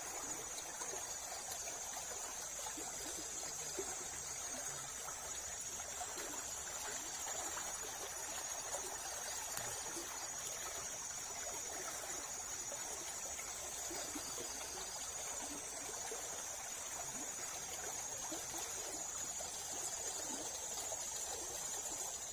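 Night insects, crickets, chirring in a steady high-pitched chorus over a constant low hiss, unchanging throughout.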